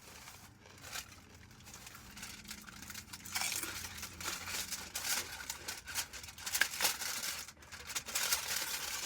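Crinkling and rustling of takeout food wrappers being handled, with scattered light clicks. It is faint at first and gets busier and louder from about three seconds in.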